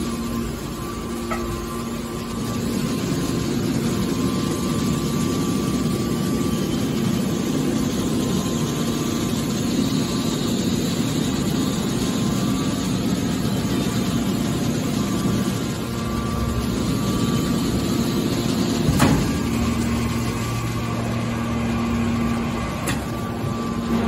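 Hydraulic scrap-metal baler running, its hydraulic pump and motor giving a steady hum. A single sharp knock comes about three-quarters of the way through.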